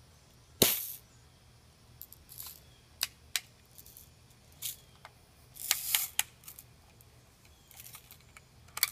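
Daisy Red Ryder spring-air BB gun fired once, a sharp crack less than a second in, followed by scattered metallic clicks and a louder rattling burst about six seconds in as the cocking lever is worked, with another click near the end.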